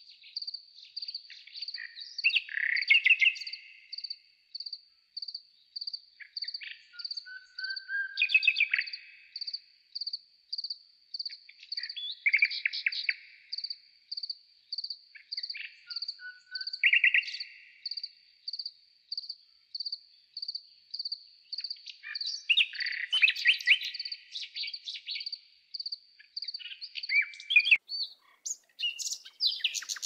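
Garden birds calling and singing in short bursts every few seconds over a steady high chirp that repeats about twice a second, with a louder rapid trill near the end.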